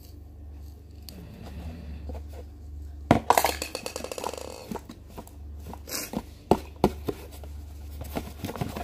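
Handling noises from small objects in a cardboard box: scattered clicks, knocks and scraping. About three seconds in comes a loud burst of rapid rattling clicks lasting over a second. A steady low hum runs underneath.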